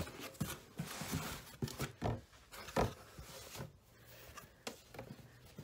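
A cardboard box being handled and rummaged through: rustling and scraping of packaging with several uneven soft knocks, the sharpest a little under three seconds in.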